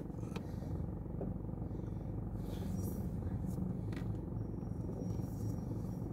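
Steady low hum of a car's engine and road noise heard inside the cabin while driving slowly, with a few light clicks.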